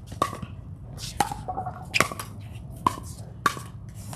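Pickleball paddles hitting the plastic ball in a rally: about five sharp pops with a brief ringing tone, coming at uneven intervals of roughly a second.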